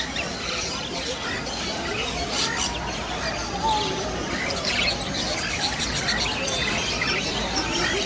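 A dense din of many caged small birds chirping and squawking at once, over the steady babble of a crowd.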